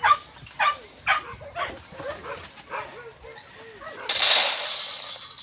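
Puppies whimpering and yipping in short, high calls, about one every half second. Near the end, a loud hissing noise lasts for about a second.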